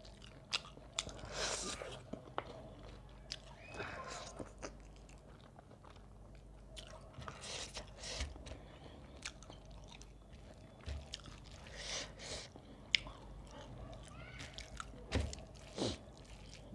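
A person chewing and smacking lips while eating rice, dal and curry by hand, close to a clip-on microphone, with scattered soft clicks and crunches. The sound of fingers mixing food on a steel plate runs alongside.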